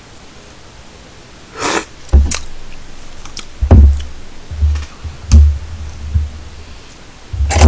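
Dishes and metal cutlery being handled on a table: a run of irregular knocks and clinks with low thuds, starting about two seconds in and getting busier near the end.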